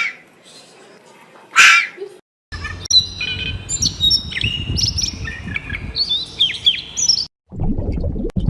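Several birds chirping and whistling in quick, overlapping calls over a low rumble, after a loud animal call or two at the start.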